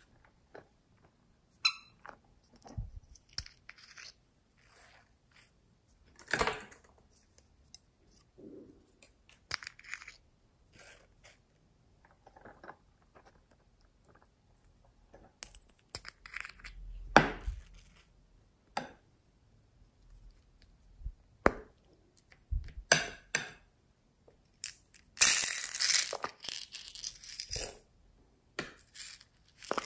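Hands handling small plastic slime tubs and toys and adding beads and sprinkles to slime in a glass bowl: scattered short clicks and rustles, with a denser rattle of about three seconds near the end.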